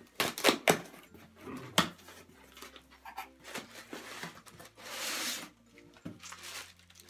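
Packaging being handled: a few sharp knocks and taps in the first two seconds, then the rustle and crinkle of honeycomb kraft paper wrap as a mug is pulled out and unwrapped.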